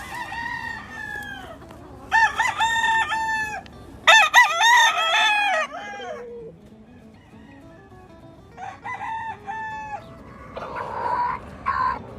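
Gamefowl roosters crowing: four long crows one after another over the first ten seconds, then a shorter, rougher call near the end.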